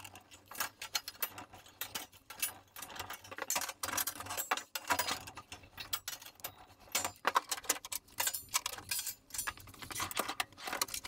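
Irregular light metallic clicks and clinks as locking pliers knock against the tabs of a steel sheet tool board while it is handled.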